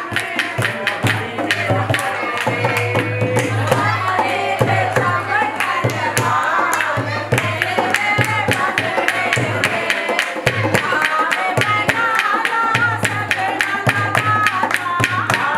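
Background music: an Indian song with a fast, steady drum beat, a steady bass and a wavering melody line.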